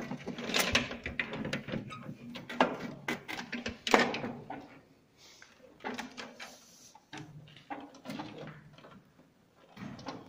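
Irregular clicks, knocks and rattles of hand work in a circuit-breaker panel: a screwdriver working the breaker terminal screws and wires being pushed into place and handled against the metal enclosure.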